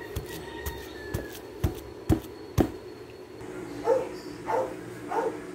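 Wooden pestle pounding boiled unripe bananas in a wooden mortar: dull knocks about twice a second for the first three seconds or so. Near the end come three short pitched calls.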